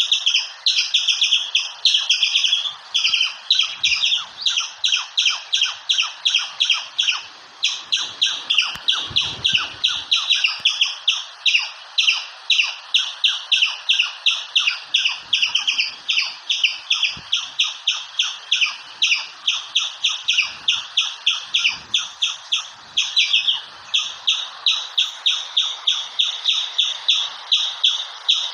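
Squirrel calling: a long unbroken series of short, high, sharp chirps repeated evenly at about three a second.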